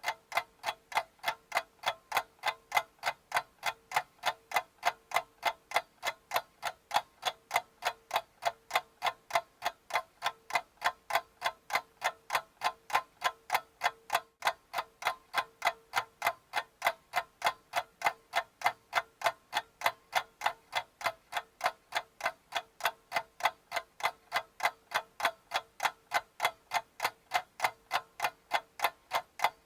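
Steady, even ticking, about three ticks a second, with a faint steady hum underneath.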